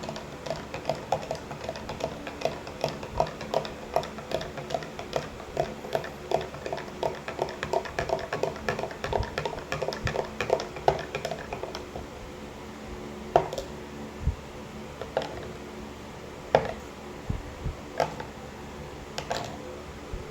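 Spoon stirring powdered charcoal into warm water in a cup, clinking against the sides about three times a second. After about twelve seconds the stirring stops, leaving a few separate clinks.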